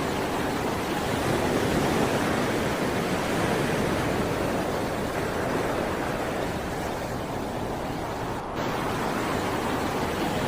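Sea waves washing onto the shore as a steady surf wash, swelling slightly about two seconds in, with a momentary drop-out near the end.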